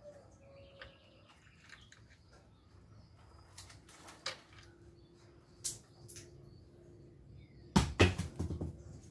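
Faint bird chirps with a few sharp clicks, then a burst of loud knocks and rustling about eight seconds in.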